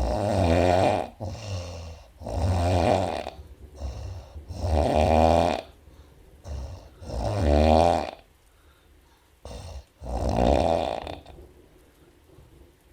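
A woman snoring in sleep: five long, loud snores about every two and a half seconds, with quieter breaths between them.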